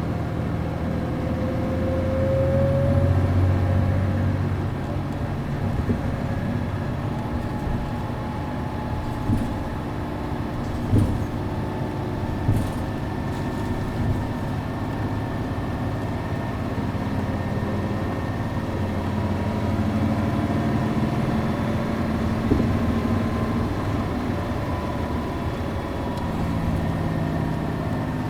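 City bus's MD92TJ diesel engine with a five-speed manual gearbox, heard from inside the cabin while the bus is under way. The engine note rises and grows louder about two to four seconds in, then settles to a steady drone, with a few brief knocks from the body.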